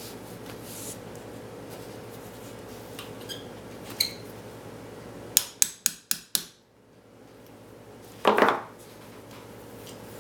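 Small steel parts of a .22 revolver being handled and fitted during reassembly: scattered metallic clicks, a quick run of five sharp clicks a little past halfway, then a short scraping clunk near the end.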